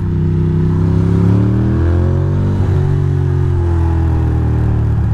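Ducati Monster's V-twin engine pulling, revs climbing for about two and a half seconds, then easing off and falling back.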